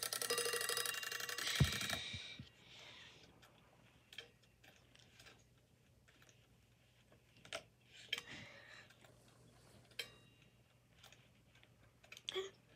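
Bell of a 1964 Westclox Big Ben wind-up alarm clock ringing with rapid hammer strokes, cut off suddenly about two seconds in. Scattered light clicks and knocks follow as the clock is handled.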